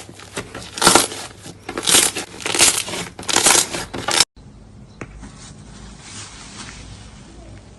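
Slime being squeezed and pressed by hand: a run of noisy squishes about once a second. About four seconds in it cuts abruptly to a much quieter clip with only faint handling noise.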